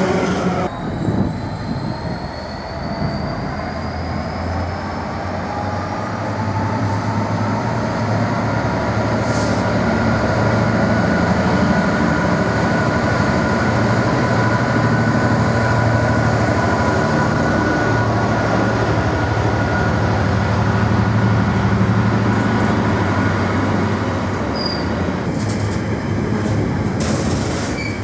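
A Class 66 diesel-electric freight locomotive's two-stroke V12 engine drones as it approaches and passes under power, with a high whine over it. Near the end its container wagons clatter past over the rails.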